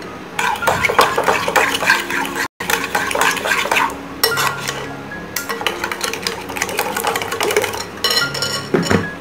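Metal spoon stirring a runny pudding mixture in a glass bowl, scraping and clinking quickly against the glass. The sound drops out for a moment about two and a half seconds in, and there are a few sharper clinks near the end.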